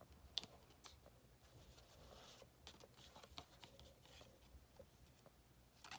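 Near silence with a few faint clicks and light rustling of Pokémon trading cards being handled.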